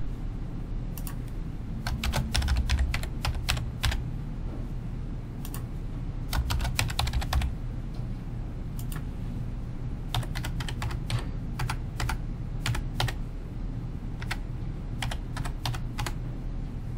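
Computer keyboard typing: four runs of rapid keystrokes with short pauses between them, over a low steady hum.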